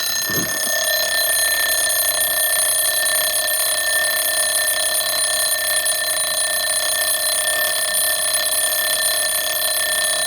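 Jaeger-LeCoultre Recital 8-day alarm clock's alarm ringing: a loud, steady, unbroken bell ring. The alarm is going off automatically again under the clock's repeating recital feature.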